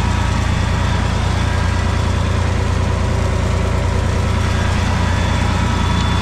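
White farm tractor's engine idling steadily, heard from the operator's seat.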